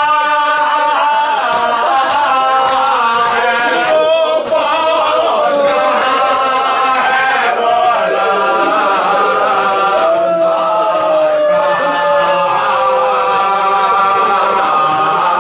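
Urdu marsiya, a mourning elegy, chanted a cappella by a group of men in unison, with long held notes and slow glides in pitch.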